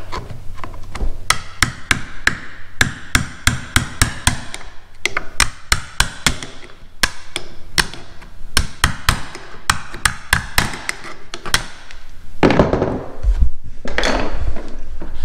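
Wood chisel cutting off the glued wooden slivers that plug stripped screw holes in a door hinge: a quick, irregular run of sharp taps and cracks, with a louder scraping stretch near the end.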